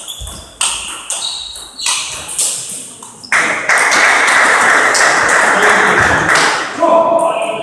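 Celluloid/plastic table tennis ball rally: sharp ping clicks of ball on bats and table, about two a second, for the first couple of seconds. A loud, steady rushing noise then follows for about three seconds.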